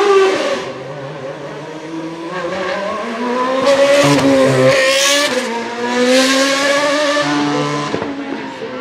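Ferrari Type 056 2.4-litre V8 of a 2013 Sauber C32 Formula 1 car revving and accelerating, its pitch rising and falling repeatedly. It is loudest from about four to seven seconds in, as the car passes close.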